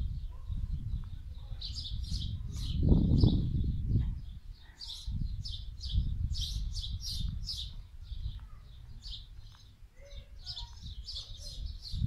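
Small songbirds chirping, a quick run of short, high notes repeated throughout, over a low rumbling noise that is loudest about three seconds in.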